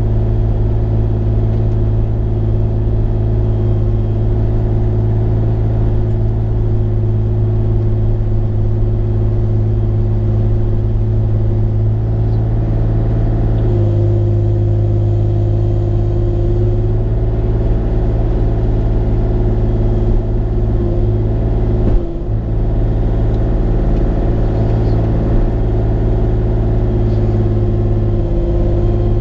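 Diesel engine of a Bobcat E35 mini excavator running steadily under work, with a slight shift in its pitch about halfway through and a brief dip about three-quarters of the way in.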